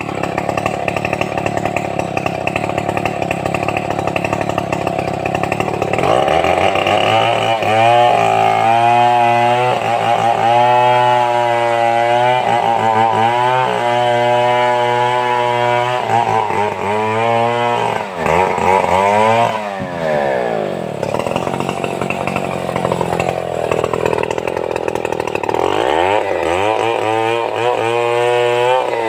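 Stihl 070 two-stroke chainsaw running while cutting timber. It revs up about six seconds in and holds at high revs, and its pitch sags and climbs back twice, near the middle and near the end.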